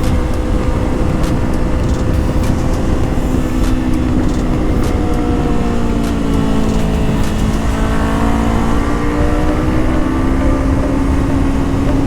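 Honda CBR500R parallel-twin engine running under way at steady revs; the revs ease off about five seconds in, bottom out around eight seconds, then climb again.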